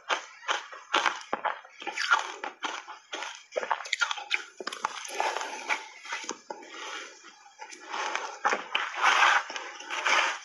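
Close-miked crunching and chewing of soft refrozen shaved ice coated in matcha powder, a run of irregular crisp crackles and clicks. Around nine seconds in there is a louder, denser stretch of crunching.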